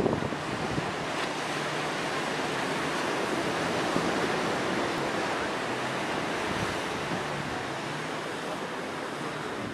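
Sea surf breaking steadily on a sandy shore, with wind buffeting the microphone.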